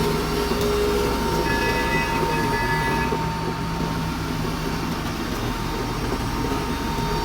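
Komatsu excavator running: a steady diesel engine sound with a constant high whine over it, and brief higher tones joining in about a second and a half in.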